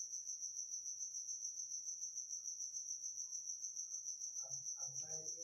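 Insect trilling: a high, steady note pulsing about six times a second.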